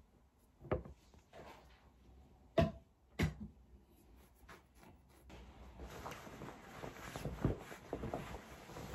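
A few separate knocks and thumps of things being handled, then fabric rustling as a jacket is lifted and handled.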